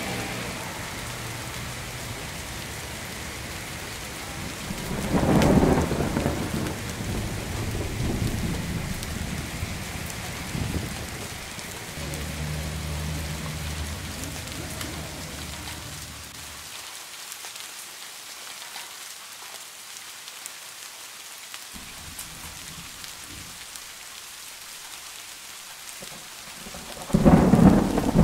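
Steady rain falling on wet pavement, with loud low rumbles about five seconds in and again near the end.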